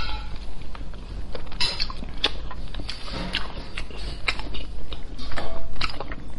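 Close-miked chewing of soft braised pork belly with the mouth closed: irregular wet mouth clicks and smacks.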